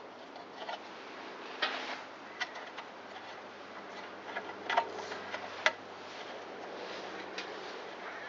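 Light metal clicks and taps at irregular intervals, from bolts and tools being handled while a sheet-metal engine fan housing is fastened down, over a faint steady hum.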